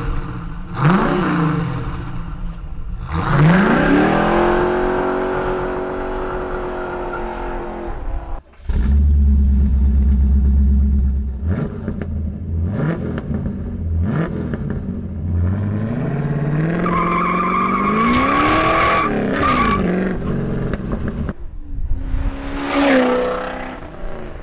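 Second-generation Pontiac Firebird Trans Am V8s with Pypes stainless steel exhausts, heard in a string of short clips: revved and held at high revs, idling low, blipped several times, and near the end one car driving past with its note rising and falling.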